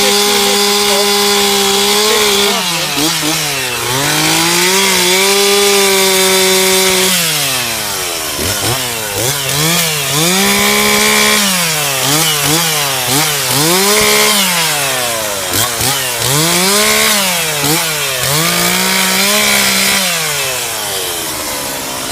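Gasoline chainsaw bucking a felled ash or elm log into firewood lengths. The engine runs at high revs, then its pitch drops and climbs back up several times as the throttle is eased and reapplied between and during cuts.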